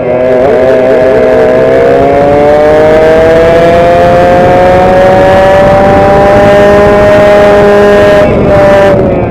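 Onboard sound of a direct-drive two-stroke kart engine at full throttle, its pitch climbing steadily as the kart accelerates down a straight. Near the end the pitch drops as the throttle is lifted for the corner.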